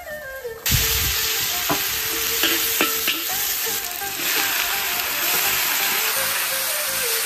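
Zucchini strips dropped into hot oil, starting a loud sizzle about a second in that carries on steadily, with a few sharp clinks of a spatula stirring in the pan.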